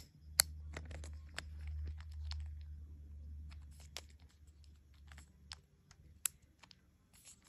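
Scattered light clicks and taps from handling a plastic insulin pen and its supplies. A low rumble of handling noise runs underneath for the first five seconds or so.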